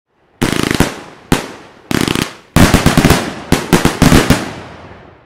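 Fireworks exploding: four separate bangs in the first two and a half seconds, then a quick run of bangs, each trailing off, dying away near the end.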